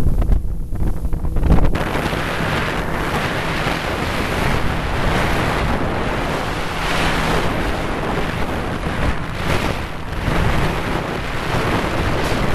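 Wind buffeting the microphone and water rushing past the hull of a motorboat running at speed, with a low engine drone beneath. The buffeting is heaviest for the first couple of seconds, then settles into a steadier rushing hiss.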